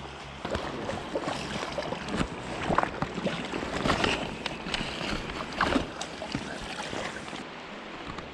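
Shallow creek water splashing and sloshing as a landing net is worked through it at the bank, in irregular splashes with a few louder ones.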